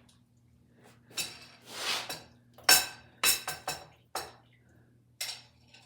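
Stew being scooped out of a crock pot with a serving utensil: scraping swishes through the stew, then a run of sharp clinks of the utensil against the pot and dish, the last one near the end.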